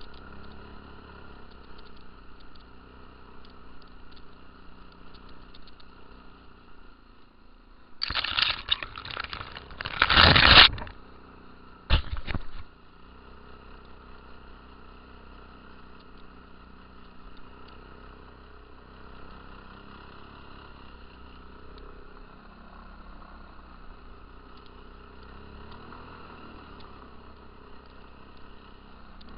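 Stels ATV 300 quad bike driving at a steady pace, its engine a steady drone. Loud scraping bursts cut in about eight seconds in for nearly three seconds, and once more briefly around twelve seconds.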